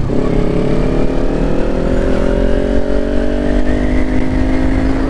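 Kawasaki Ninja 400's parallel-twin engine pulling under acceleration: its pitch drops at a gear change right at the start, then climbs steadily, with wind rush on the microphone underneath.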